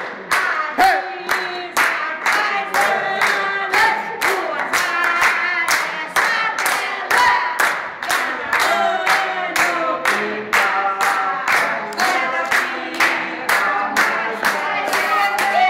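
A group of family voices singing a birthday song together over steady hand-clapping, about two to three claps a second.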